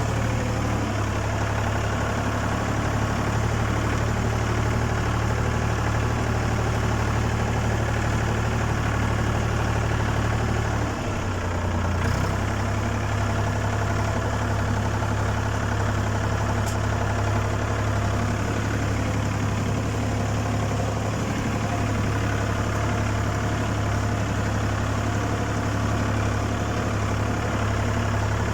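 Ford 4000 tractor engine running steadily, its note dipping briefly about eleven seconds in before settling back.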